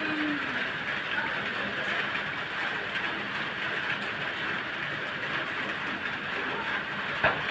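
Steady rain falling, an even hiss, with one sharp tap near the end.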